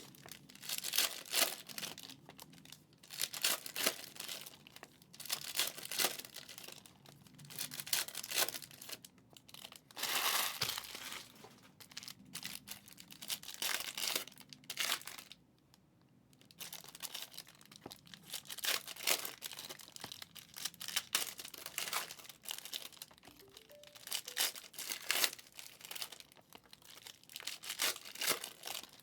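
Wrapping on a box of 2020 Mosaic No Huddle football card packs being torn open and crinkled by hand, in repeated irregular bursts with a short pause about halfway through.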